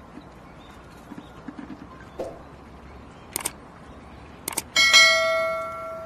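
Two sharp clicks followed by a bright bell ding that rings and fades over about a second and a half: the stock sound effect of a YouTube subscribe-and-bell button overlay. A faint steady hiss sits underneath.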